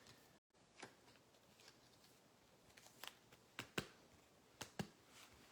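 Near silence broken by faint, scattered light clicks and taps of small items being handled at a desk, several of them close together between three and five seconds in.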